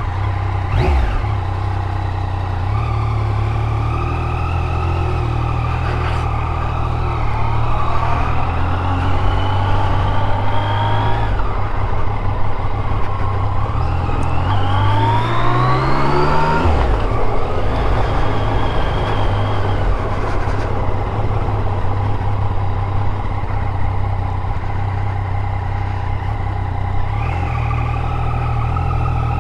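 Yamaha MT-09's inline three-cylinder engine running as the bike pulls away. The note rises gently, then climbs steeply until it drops abruptly at a gear change about 17 seconds in, and after that it settles into a steadier low run.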